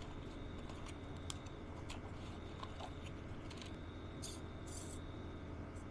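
Light clicks and scratchy rubbing of a plastic folding drone body being handled and turned over in the hands, with two short rustles near the end, over a faint steady hum.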